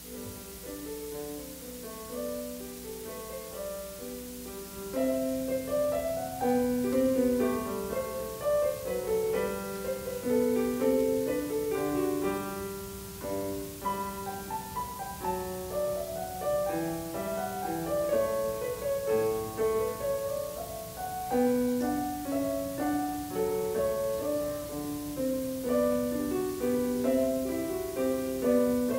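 Solo piano piece played on a Casio Privia digital piano, notes moving up and down in quick succession. It starts softly and grows louder about five seconds in.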